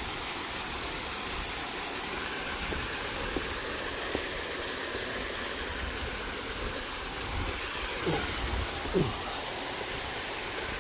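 Steady rushing of a small mountain stream cascading over rocks, with a few faint knocks that sound like footsteps on stone.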